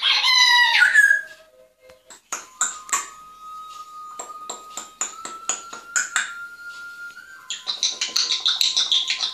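African grey parrot vocalising: a loud call in the first second, then a string of sharp clicks over a faint, slowly rising whistle, and a fast run of high clicks near the end.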